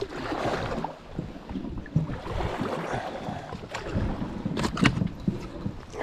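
Canoe paddle strokes: the blade splashing and swishing through the water in uneven surges, with a couple of sharp clicks about five seconds in.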